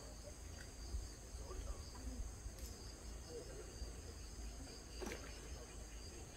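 Insects chirring steadily in a high, even drone, over a faint low rumble, with a soft tick about five seconds in.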